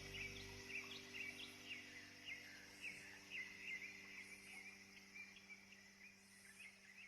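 Small birds chirping faintly, a busy run of quick, irregular chirps over a soft background hiss.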